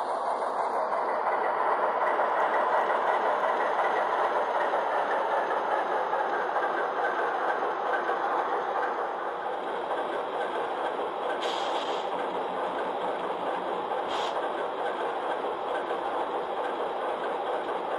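Sound decoder in an N scale Broadway Limited Alco PA model locomotive playing diesel engine sound through its small onboard speaker: a steady running sound with little deep bass. There are two short, higher hissy bursts about two-thirds of the way through.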